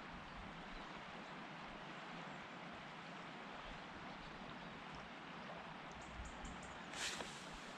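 Steady rushing of a fast-flowing, swollen river in flood, with a brief rustle or knock near the end.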